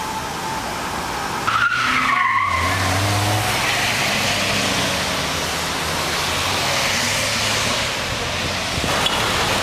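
Police pickup trucks driving past at speed, engines running, with a short tire squeal about two seconds in.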